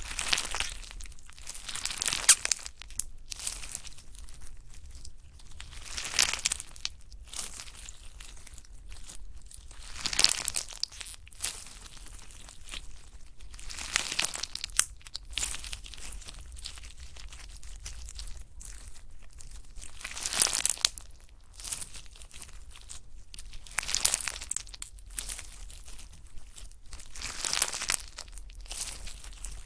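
Slime being squeezed and pressed by hand close to the microphone, giving crackling, crinkly bursts every few seconds.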